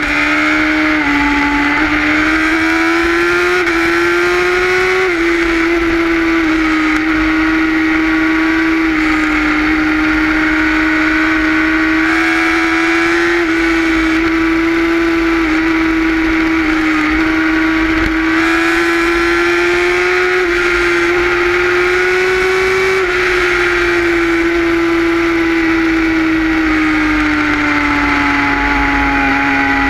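Sport motorcycle engine and exhaust running steadily at cruising speed, its note rising and falling gently with the throttle and easing lower over the last several seconds as the bike slows. Wind rumble on the microphone runs underneath.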